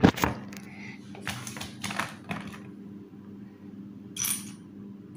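Loose Lego pieces clicking and clattering as they are handled, a run of light plastic clicks in the first two and a half seconds, then a brief rustle about four seconds in.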